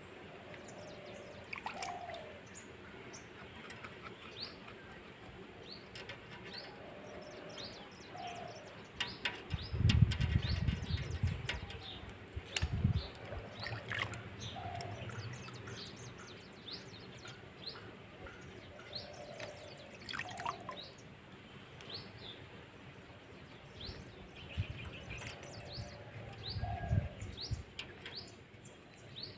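Hands swishing and splashing in a shallow basin of water while washing mushrooms, loudest in two spells, about a third of the way in and again near the end. Birds chirp throughout, with a short falling call repeated every few seconds.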